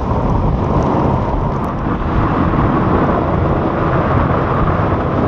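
Small open boat running at speed through rough water: wind rushing over the microphone on top of the steady drone of its outboard motor.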